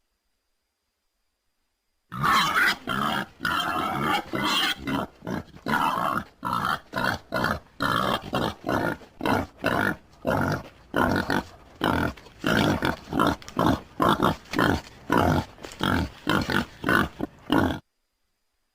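Wild boar grunting in a fast run of short, rough grunts, about two to three a second. They start about two seconds in and stop abruptly shortly before the end.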